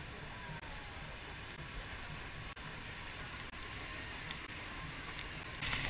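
Steady, fairly quiet rushing of river water around a round river-rapids ride raft as it floats along. Near the end the water noise gets suddenly louder and brighter.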